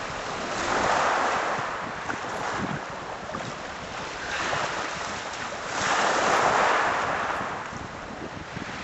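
Sea waves breaking and washing up a shingle beach, surging twice about five seconds apart, with wind buffeting the microphone.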